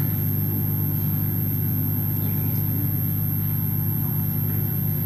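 Steady low hum with no change in level, the even background drone of the hall's sound feed.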